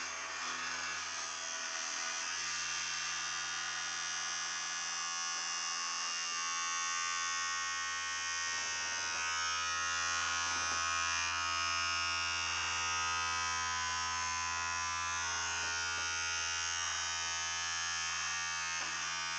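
Vibrating-toothbrush motor with an off-centre spinning weight, buzzing steadily while it shakes the aluminium foil tray it is glued into.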